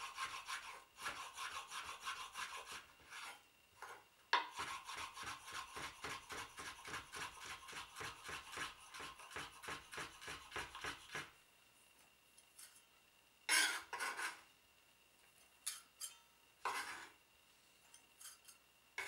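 Kitchen knife chopping cornichons on a wooden cutting board in a quick, even rhythm of many strokes a second, with a short pause about four seconds in. The chopping stops a little past halfway, and a couple of short scraping sounds follow.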